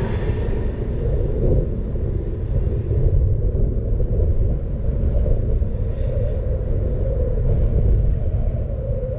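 Steady low rumble of a car on the move: engine and tyre noise from the road.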